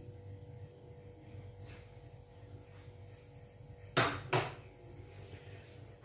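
Two short sharp knocks less than half a second apart, about four seconds in, over a faint steady hum.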